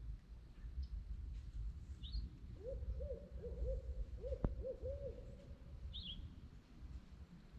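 Barred owl hooting: a quick run of about seven rising-and-falling hoots over some two seconds, ending in a drawn-out note. A low rumble runs underneath, and brief high chirps sound twice.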